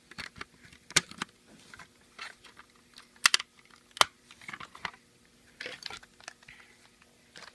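Irregular plastic clicks and taps from a smoke alarm being handled, the sharpest clicks about a second in and again around three and four seconds in.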